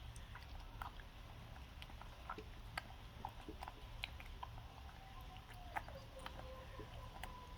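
Faint, irregular small clicks and smacks of a baby monkey chewing and handling soft food such as mango.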